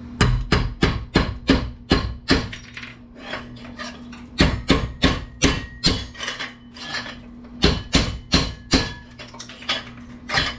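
Repeated hammer blows on metal, knocking steel pins out of an aluminum computer part. The sharp strikes come a few a second in runs, with short pauses between.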